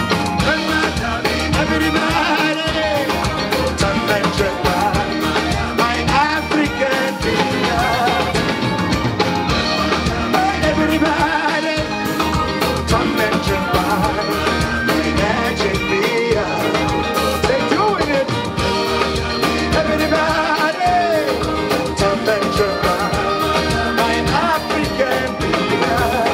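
Live band playing upbeat African dance music, with a steady drum beat and singing.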